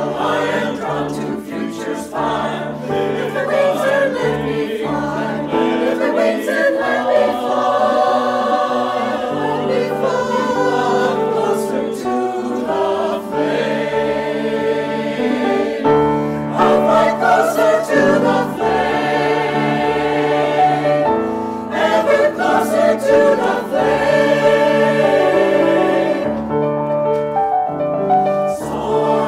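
Mixed choir of men and women singing in parts, accompanied by a grand piano.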